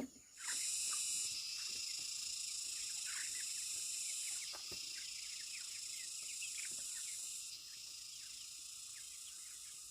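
Insects droning steadily at a high pitch, the drone dropping in level twice, about four and a half and seven and a half seconds in, with short bird chirps over it.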